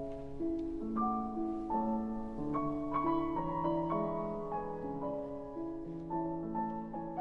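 Background music: a gentle piano piece, its notes changing about every half second.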